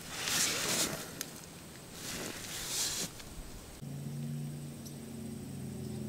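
Two brief soft rustling hisses, then from about four seconds in a steady low hum made of a few level tones.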